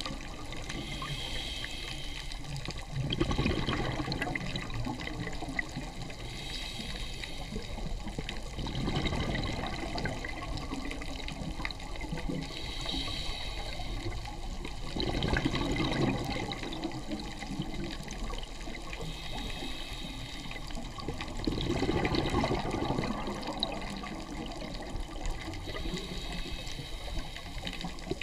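Scuba diver breathing through a regulator underwater: a hissing inhale, then a rush of exhaled bubbles, repeating about every six seconds.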